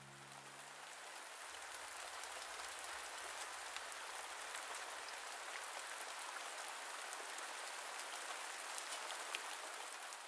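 Steady rain falling, a dense patter of drops with a few louder single drops standing out.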